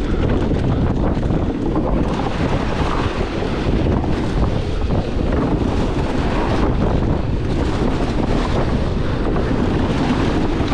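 Wind rushing over the microphone during a fast mountain-bike descent, with a continuous rattle and clatter of the bike and tyres over rough trail.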